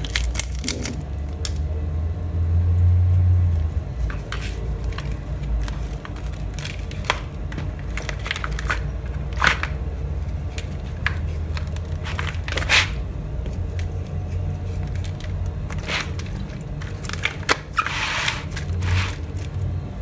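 Hands unwrapping a foil-wrapped stock cube, crumbling it over whole tilapia and rubbing it into the fish: scattered crinkles, crackles and light clicks, over a steady low background hum.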